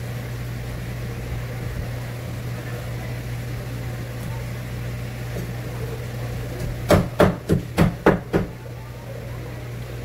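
A knife chopping on a wooden cutting board: six sharp knocks in quick succession near the end, over a steady low hum.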